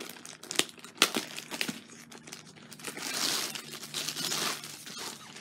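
Stiff diamond-painting canvas with its plastic cover crinkling as it is handled and unrolled. There are a few sharp crackles in the first couple of seconds and a longer stretch of crinkling in the second half.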